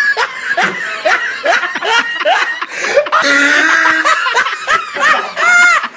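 People laughing: a string of short laughs about every half second, with a louder breathy stretch of laughter about three seconds in.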